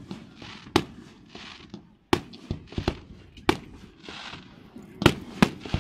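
Aerial firework shells bursting in a display, heard as about eight sharp bangs at irregular intervals, with a hiss between them. Three bangs come in quick succession near the end.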